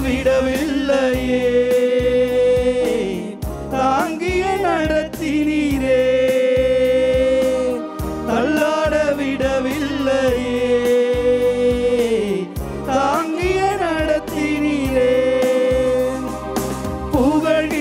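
Tamil Christian devotional song: a man sings long held notes into a microphone over instrumental backing with a steady beat.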